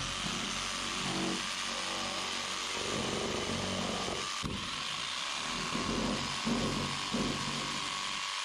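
Corded jigsaw (saber saw) cutting through a canoe's Royalex hull along a cold crack, widening it to a clean cut ready for epoxy repair. The saw runs steadily, and the sound of the blade in the plastic keeps shifting as it cuts.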